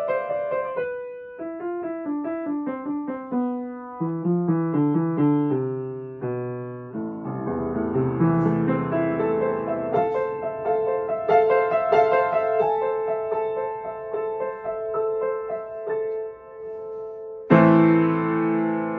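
Keyboard music with no speech. It begins as a melody of single struck notes that fade away, lower bass notes join about four seconds in, and it ends on a loud, full chord near the end.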